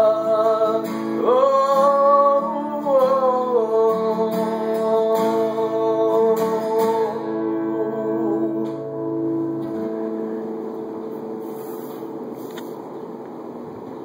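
Acoustic guitar playing the closing strums of a country song, with a held wordless sung note over it. The final chord then rings out and fades away over a few seconds, leaving a faint hiss.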